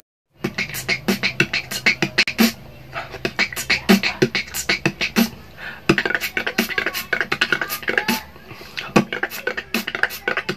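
Human beatboxing: a fast, dense stream of mouth-made percussive thumps, clicks and hissing hi-hat-like sounds. It starts about half a second in after a brief silence.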